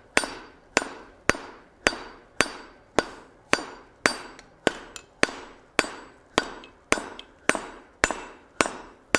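Hand hammer striking red-hot steel stock on the horn of a Happybuy 66 lb cast steel anvil, drawing the bar out. The blows come in an even rhythm a little under two a second, about seventeen in all, each with a brief metallic ring from the anvil.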